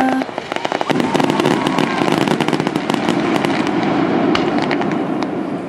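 Aerial fireworks in a rapid barrage: many sharp crackling reports in quick succession over a continuous rumble. It is densest in the first couple of seconds, then thins to a few scattered cracks and fades near the end.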